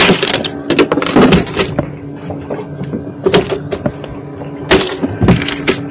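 Fish being handled and dropped into plastic boxes: irregular knocks and clatters against a plastic tub and cooler. A steady low hum runs underneath.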